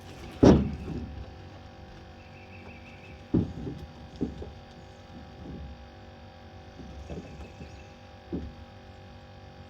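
Thumps and knocks in a small boat while a cast net is worked for bait, with a sharp loud knock about half a second in and three softer thumps later, over a steady low hum.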